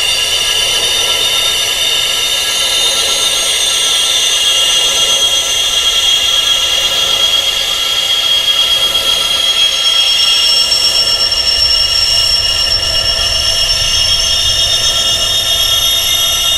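Wind chimes tuned to high, tinnitus-like pitches: many metal tones ringing and overlapping in a dense, steady wash. A low rumble comes in underneath about twelve seconds in.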